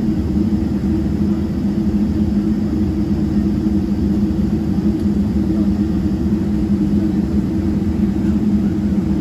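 GE90-115B engines of a Boeing 777-300ER idling, heard inside the cabin as a steady low drone with a two-note hum.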